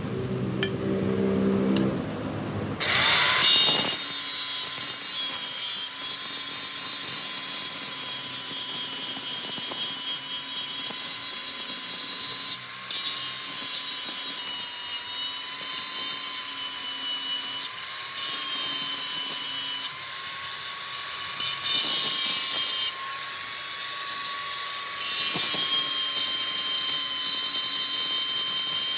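A metalworking machine working a flywheel starts up about three seconds in, then runs steadily with a high, slightly wavering whine over a hiss, broken by a few brief cuts.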